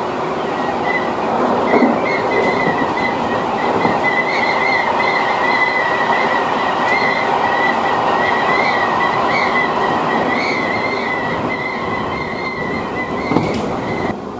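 Tobu 30000 series electric train running at speed, heard from the cab end: a steady rumble of wheels on rail with a wavering high squeal over it, and a single knock near the end.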